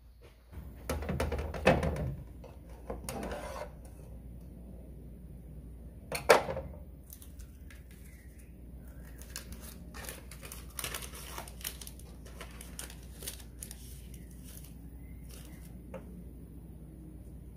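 Handling of metal mini tart tins on an aluminium baking sheet as tarts are unmolded: a run of light clicks, taps and clinks with some rustling of a paper baking cup, and one louder knock about six seconds in.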